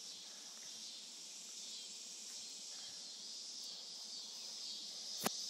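Steady high-pitched chorus of insects, with one sharp click near the end.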